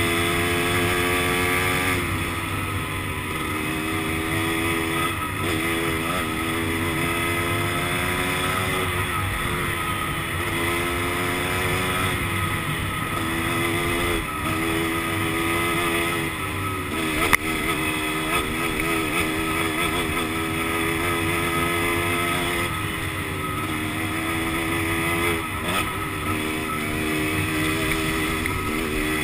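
Dirt bike engine under way, its pitch climbing and dropping back again and again as the rider works the throttle. A single sharp click about 17 seconds in.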